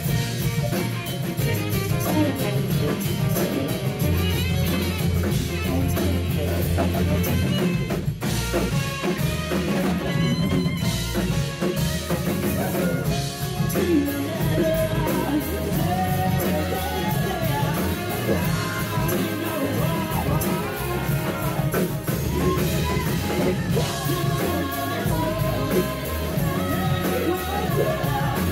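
Live rock band playing a soul-rock arrangement: grand piano, electric bass and drum kit, with a group of singers.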